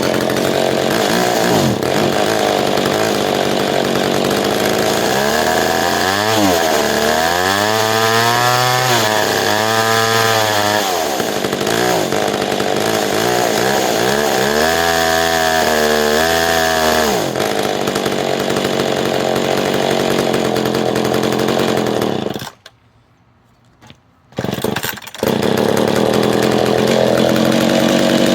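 Two-stroke McCulloch 10-10 Automatic chainsaw engine running, revved up twice and let back down to idle. It cuts out suddenly for a couple of seconds about two-thirds through, then runs again. The owner says it idles but won't rev all the way up.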